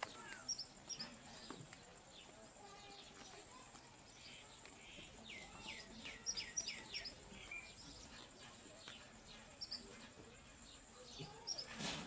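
Purple sunbirds at the nest giving thin, high chirps and short falling peeps in scattered clusters, busiest about six to seven seconds in, as the female feeds her nestlings.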